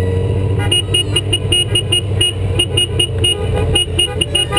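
Motorcycle engine running steadily at parade pace, under a quick run of short, high beeps or toots, about five a second, that start about a second in.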